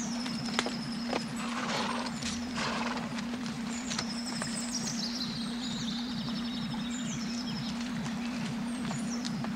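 Horses walking, their hooves clopping in a steady rhythm, with birds chirping high above.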